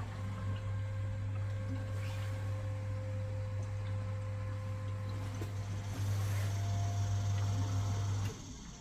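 Small electric pump humming steadily, a little louder about six seconds in, then switched off abruptly near the end.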